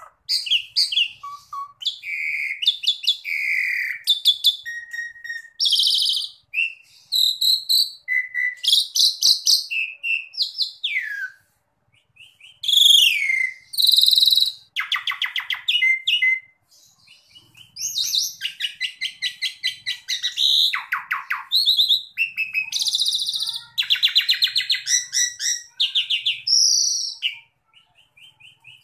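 Asian pied starling (jalak suren) singing a long, varied song: quick phrases of whistles, rapid rattling trills and squeaky gliding notes, broken by a few brief pauses.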